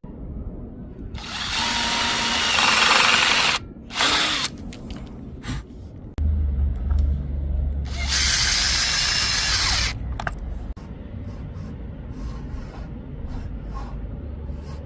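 Power drill driving a combined pilot-drill and countersink bit (double drill bit) into wood. It makes two runs of about two seconds each with a brief burst between them. Scattered clicks and knocks of handling fill the gaps.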